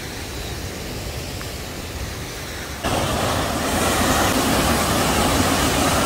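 Waterfall rushing: a steady, even roar of falling water that becomes clearly louder about three seconds in.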